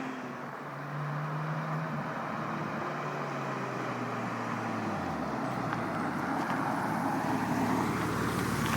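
Porsche 997 Turbo's 3.6-litre twin-turbo flat-six running through a Europipe exhaust, settling to low, steady revs after a hard rev. Its pitch dips about five seconds in, then climbs slowly.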